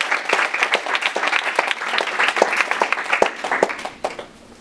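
Small audience applauding, a dense patter of hand claps that dies away about four seconds in.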